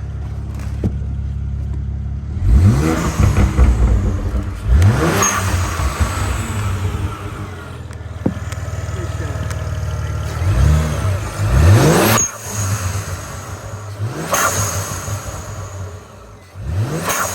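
BMW 335i's N54 twin-turbo 3.0-litre inline-six idling steadily, then revved in several quick blips, its pitch rising and falling each time. A few sharp bursts of noise come as the revs drop.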